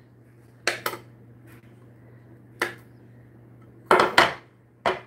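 Knife clinking against a small plate and a glass bowl as butter is cut and pushed off into the bowl: a handful of sharp clicks, with the loudest pair about four seconds in.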